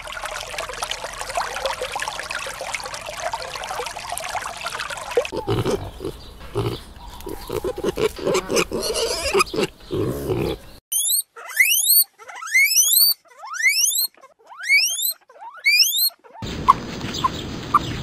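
A shallow stream rushing over stones, then pigs grunting for several seconds. After that comes a run of about ten quick, steeply rising whistles.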